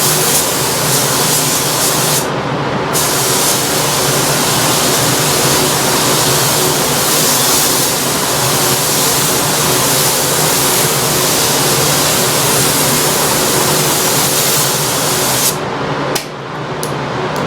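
Spray hissing steadily as adhesion promoter is sprayed onto a plastic bumper. It cuts off briefly about two seconds in and stops and restarts a few times near the end, over a steady low hum.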